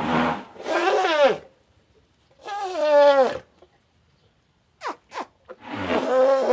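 An animal calling three times, each call a drawn-out cry that falls in pitch at its end.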